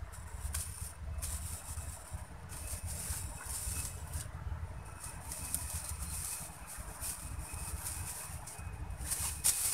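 Irregular rustling of leaves and brush in swells over a low rumble of wind on the microphone.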